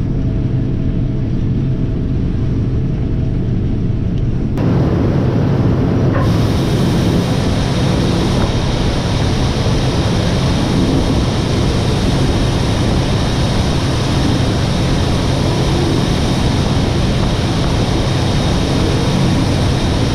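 Diesel harvest machinery running steadily, a tractor or combine engine drone. About four and a half seconds in the sound changes abruptly to a denser, brighter running noise, and it changes again a couple of seconds later.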